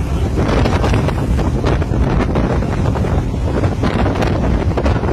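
Heavy wind buffeting the microphone: a loud, steady rumble with irregular gusty rushes.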